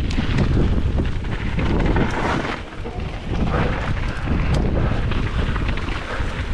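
Wind buffeting the microphone of a mountain biker's camera during a ride: a heavy, steady rumble with surges of hiss and a few small ticks and rattles over it.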